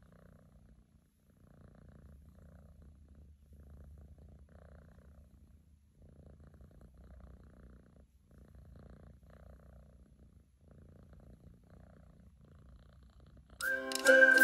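Domestic cat purring softly, the purr coming in pulses about every two seconds. Music starts suddenly near the end.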